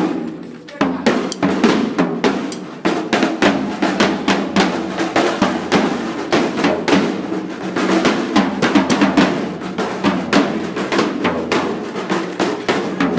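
Drums beaten in fast, dense strokes, with a short lull about half a second in before the playing carries on steadily.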